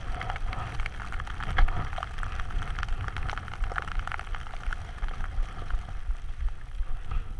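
Wind rushing and rumbling over an action camera's microphone while riding fast down through deep powder snow, with a steady scatter of small ticks and crackles from snow spray hitting the camera.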